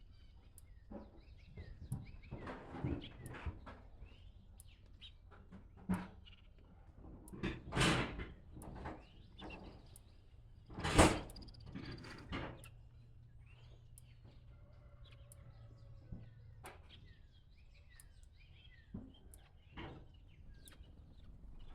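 Birds chirping faintly, with scattered knocks and rustles, the loudest a sharp thud about eleven seconds in.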